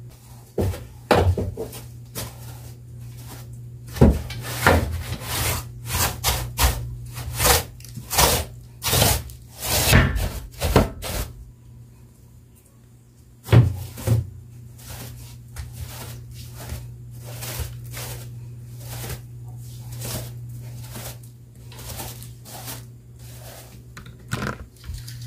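A long-handled mop with a fluffy head being worked over a tiled floor, with irregular knocks and thuds, many in the first ten seconds or so and fewer, fainter ones after, over a steady low hum.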